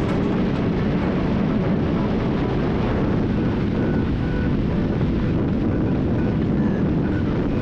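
Wind rushing over the microphone of a moving motorcycle, with the engine running steadily beneath it.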